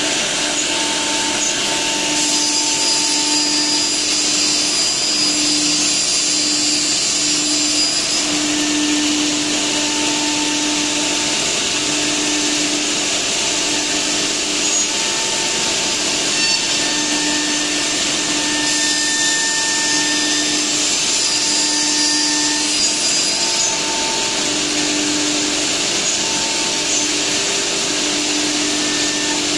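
Ruinuo R-1325F-E CNC router running a cutting job on a wood panel, with its spindle and dust extraction making a steady loud rush. Over it, pitched tones keep cutting in and out, and a higher whine rises for several seconds twice, about two seconds in and again near the middle.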